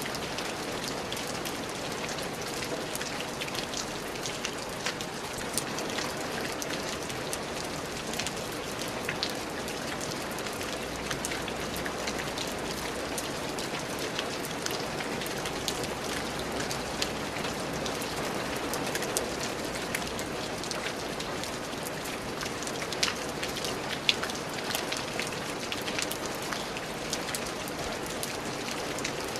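Steady rain falling, a dense even hiss with many individual drops pattering on a surface; a few louder drops stand out near the end.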